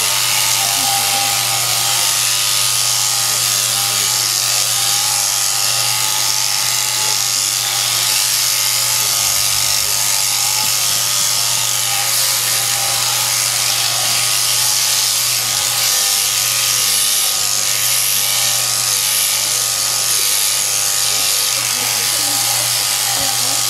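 Sheep-shearing handpiece on a jointed overhead drive arm running steadily, its comb and cutter clipping through a sheep's wool: a constant, even mechanical hum.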